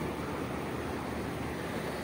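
Steady rushing of wind and surf on a beach, even and unbroken.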